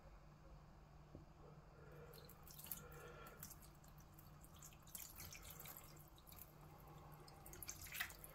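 White wine poured from a glass over meat into a stainless steel roasting pan, faintly splashing and dripping, with a few light knocks.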